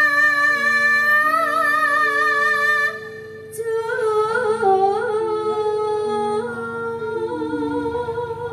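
Woman singing into a microphone over electronic keyboard accompaniment. She holds one long note with vibrato for about three seconds, breaks off briefly, then sings on more softly, while the keyboard plays a run of short held notes underneath.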